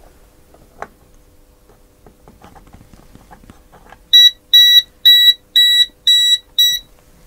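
Venlab VD-200 non-contact voltage detector, on its high setting, beeping six times at about two beeps a second as its tip sits in a live mains socket: it is detecting AC voltage. Faint handling clicks come before the beeps.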